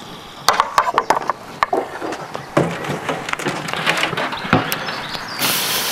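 Metal grill tongs clicking and knocking as lamb chops are handled. About five and a half seconds in, a steady sizzle starts as the chops' fat sides go onto the hot grill grate.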